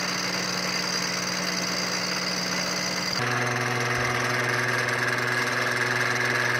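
Milling machine spindle running steadily while its cutter machines an aluminium block, a low hum under a high whine. About three seconds in, the hum drops abruptly to a lower pitch.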